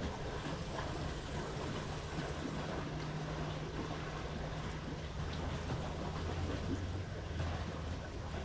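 Steady background noise with a low mechanical drone, like a distant motor, whose hum drops lower in pitch about five seconds in.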